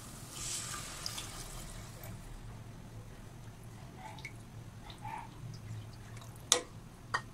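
Tamarind water poured from a bowl into a pot of curry paste, splashing for about two seconds, then stirred with a wooden spoon with small scattered plops. Two sharp knocks come near the end.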